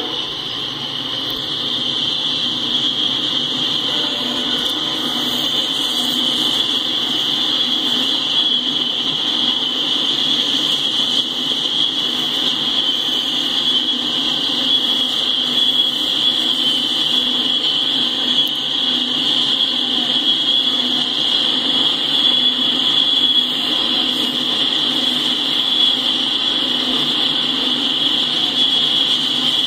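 Freight train tank cars rolling past on the rails, a steady rumble with a continuous high-pitched ringing tone over it.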